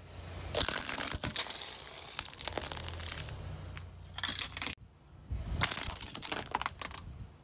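Plastic toothpick tubs packed with wooden toothpicks crunching under a car tyre: dense crackling and sharp snapping of plastic and wood, broken off suddenly about two-thirds in, then a second, shorter bout of snapping.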